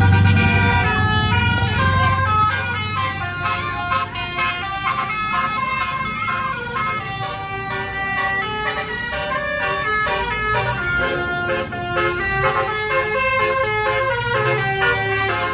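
Bus 'telolet' multi-tone Basuri horn playing a long melody of stepped notes, over a passing bus's engine rumble that is loudest in the first second.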